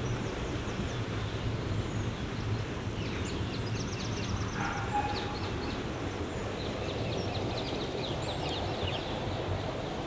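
Small birds singing, a run of quick high chirps and trills through the middle of the stretch with one brief lower call, over a steady low rumble.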